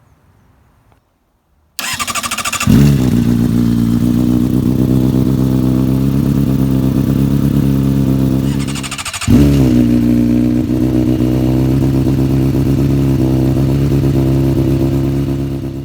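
Honda CBR600RR inline-four engine running through an aftermarket carbon-fibre slip-on muffler. It comes in suddenly about two seconds in, blips up and falls back to a steady idle, dips briefly near the middle, then blips again and settles back to idle.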